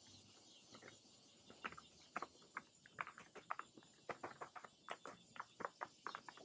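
Faint, irregular small clicks and rustles of a paper template being handled.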